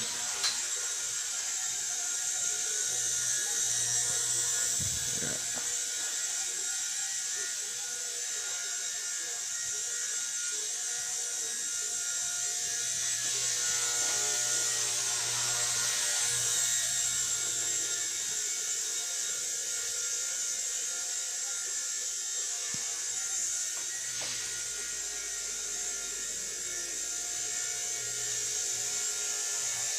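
Small electric RC helicopter in flight, its motor and rotor whining steadily. The pitch and loudness rise and fall a little as it hovers and moves about.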